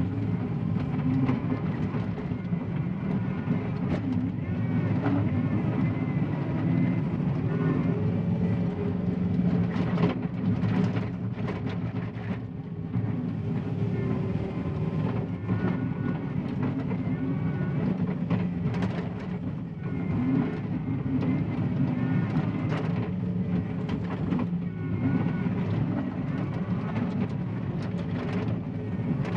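John Deere 333E compact track loader's diesel engine running steadily under load while dozing clay, with frequent short knocks and clanks.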